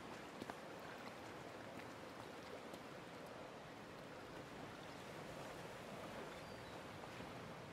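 Faint, steady outdoor ambience: the soft wash of sea water, with a couple of small ticks about half a second in.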